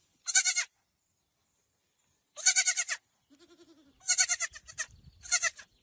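Four high, quavering animal cries, each under a second long, with a fainter, lower wavering call between the second and third.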